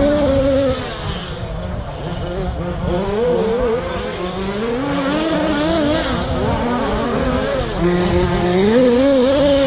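Radio-controlled short course racing cars running on the track, their motors rising and falling in pitch again and again as they speed up and slow down around the course.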